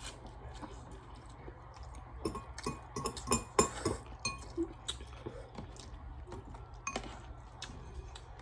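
Eating utensils clinking and scraping against a dish while noodles are eaten: a string of sharp clicks that comes thickest about two to four seconds in, with another knock near the seven-second mark.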